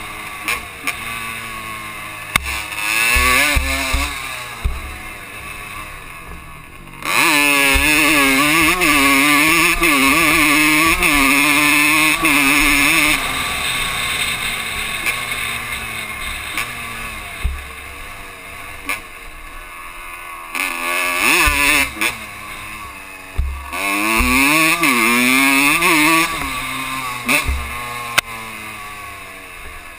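Honda dirt bike engine revving up and backing off again and again as the rider rides the trail, loudest in a long pull about a quarter of the way in and in short bursts near the end, with wind rush and knocks from bumps on the helmet-mounted microphone.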